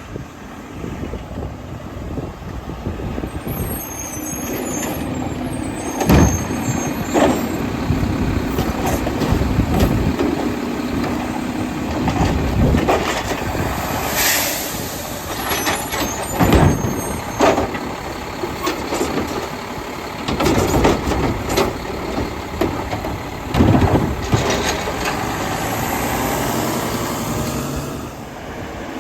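Mack LEU garbage truck with a Labrie Automizer side-loading arm at work: the engine runs under a steady low whine for about the first half, and repeated loud bangs and clunks from the truck come every few seconds.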